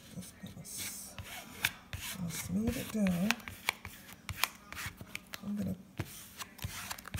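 A plastic credit card scraped and rubbed in repeated strokes across glued fabric, pressing it flat onto leather, with many sharp clicks and taps along the way.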